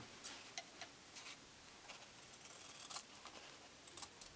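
Scissors cutting through a fabric quilt binding strip: a few faint, scattered snips and blade clicks, with a small cluster near the end.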